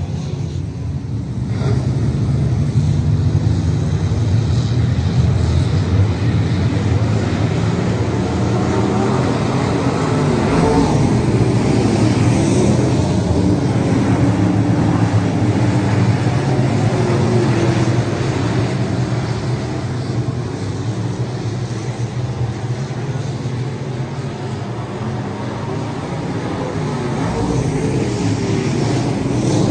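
A field of dirt late model race cars running at speed around a dirt oval, their V8 engines at full throttle in a steady din that swells about two seconds in, eases off a little, and swells again near the end as the pack comes by.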